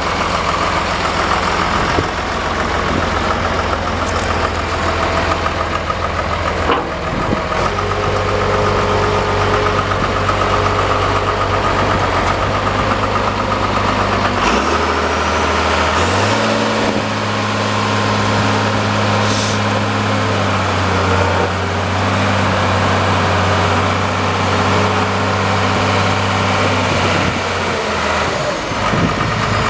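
2002 Komatsu D41P-6 crawler dozer's diesel engine idling, then revved up about halfway through as the blade is worked. It holds the higher speed for around ten seconds, then drops back to idle near the end.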